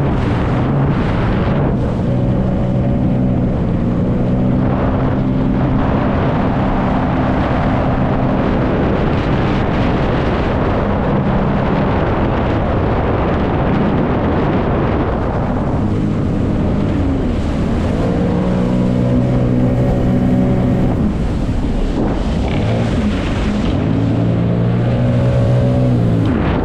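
Jet ski engine running under way, its note rising and falling several times with the throttle, mixed with the rushing noise of water and spray.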